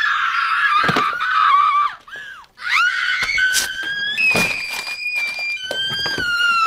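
A high-pitched voice screaming in long held shrieks. It breaks off about two seconds in, comes back with a rising shriek, and is held again on a higher note and then a lower one, with a few sharp knocks in between.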